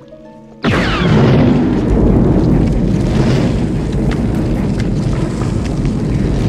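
A science-fiction blaster shot, a quick falling zap, a little under a second in, followed at once by a loud, deep, sustained rumble of the ground quaking, with scattered cracks through it.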